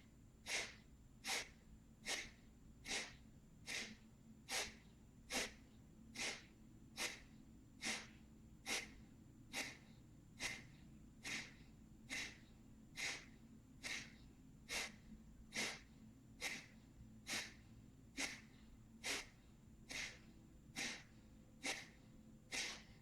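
A person doing Kapalabhati breathing: a steady run of short, forceful exhalations through the nose, a little faster than one a second, each followed by a quiet passive inhale.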